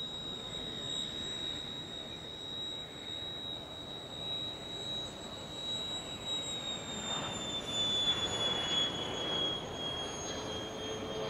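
Beriev Be-200's two Progress D-436TP turbofan engines at take-off power as it lifts off and climbs toward and past: a steady high whine over a rushing noise. The whine drops slightly in pitch from about halfway through, and the rush grows loudest near the end as the aircraft comes overhead.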